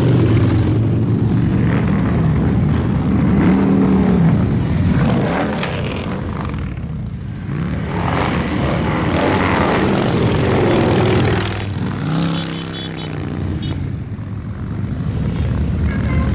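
A stream of motorcycles, mostly Harley-Davidson V-twins, riding past one after another, the engine note of each rising and falling as it goes by.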